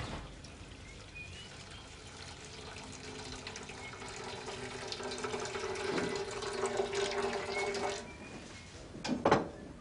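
Water running from a tap, the rush growing gradually louder over several seconds before cutting off abruptly. A few sharp knocks follow near the end.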